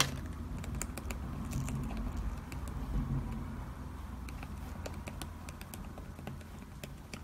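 Alcohol-ink brush work on paper: scattered light clicks and taps, with one sharper click at the very start, over a low steady hum.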